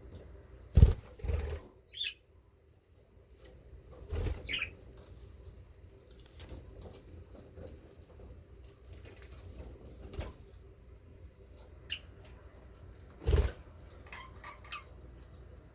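Budgies flapping their wings in short flurries, the loudest about a second in and again near the end, with a few brief high chirps in between.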